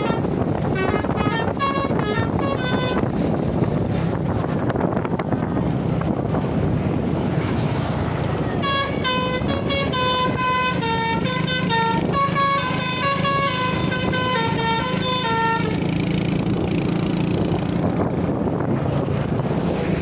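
An intercity bus's Basuri V3 telolet horn playing quick stepped melodies of several notes at once: a short run of notes at the start, then after a pause a longer run of rapid notes lasting about seven seconds. Steady wind and road noise runs underneath.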